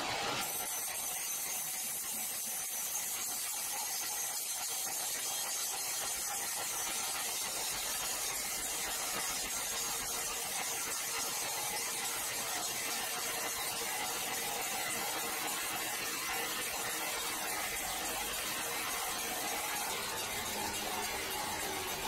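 Horizontal band sawmill's blade cutting lengthwise through a large log: a steady high hiss with a faint steady whine under it.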